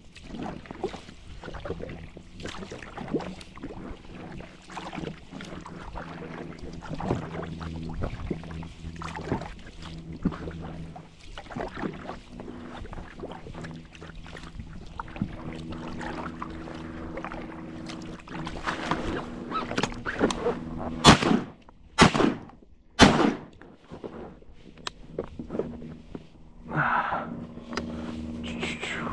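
Kayak paddling with small knocks and water sounds over a steady low hum, then three loud shotgun shots about a second apart near the end, a jump shot at flushed ducks.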